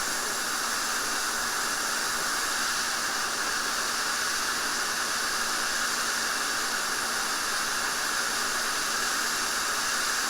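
Hot-air rework station blowing a steady hiss of air at 400 °C onto a DC-DC converter chip to melt the solder under it; the chip's ground plane is soaking up the heat, so the air has to keep flowing.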